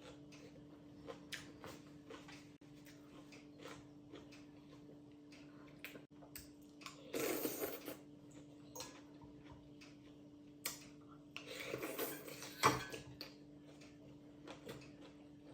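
Soup noodles being eaten: two slurps with light clicks of utensils against a bowl, and a sharp clink just after the second slurp, over a faint steady hum.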